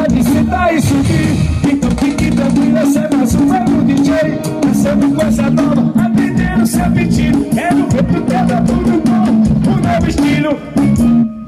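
Upbeat song with a steady drum-kit beat, bass and a gliding melody line; the music drops out briefly near the end.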